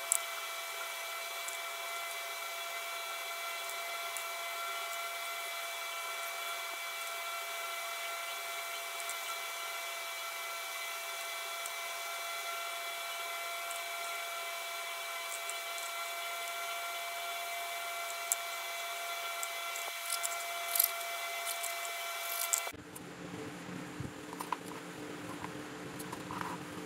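A small electric motor, of the kind in a mini rotary tool or drill, running at a steady high-pitched whine, with a few sharp clicks toward the end. About four seconds before the end it cuts off abruptly and a quieter, lower hum takes over.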